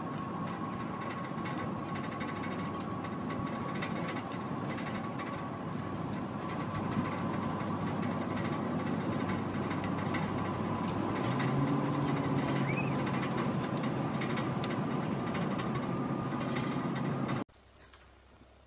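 Steady car-cabin noise of an engine running, with a thin steady whine; a lower hum joins about eleven seconds in. It cuts off abruptly near the end.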